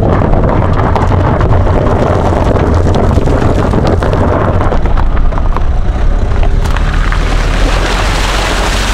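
Car driving over a gravel track: a heavy rumble with many small ticks of stones under the tyres, and wind buffeting a microphone mounted on the car's side. From about seven seconds in, hissing water spray as the wheel splashes through a shallow stream ford.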